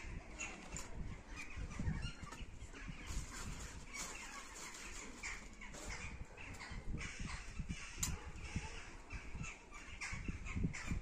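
Crows cawing repeatedly, over irregular clicks and crackles from twigs burning and being fed into a small folding wood-burning camp stove.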